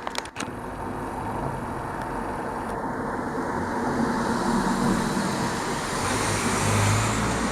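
Road traffic noise: a steady rush that slowly builds, with a low hum swelling near the end. A couple of sharp clicks at the very start.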